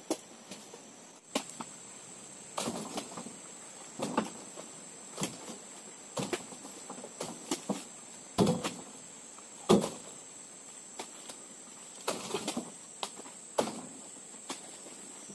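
Heavy oil palm fruit bunches being speared with a pole and heaved into a pickup's load bed: a series of dull knocks and thuds at irregular intervals, about one every second or so. A steady high whine runs underneath.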